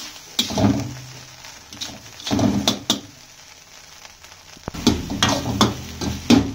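Steel spatula scraping and tossing egg fried rice in a large iron kadai, stroke after stroke, over the frying rice. The strokes thin out for a while in the middle, then come quickly again over the last two seconds.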